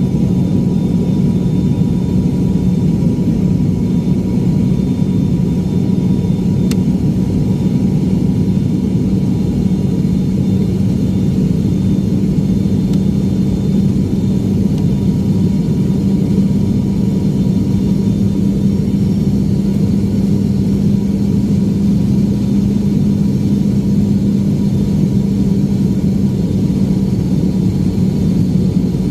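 Steady cabin noise of an airliner in flight: an even engine drone with a strong low hum.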